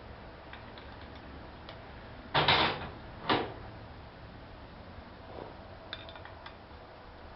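Screwdriver prying at the top spring retainer of a motorcycle rear shock, levered over a hammer handle: two short knocks about a second apart, a little over two seconds in, the first with a brief scrape, then a few faint light clicks.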